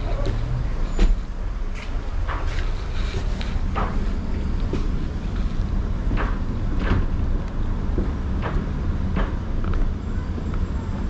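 Inside a standing tram: a steady low hum with scattered clicks and knocks, the loudest about a second in.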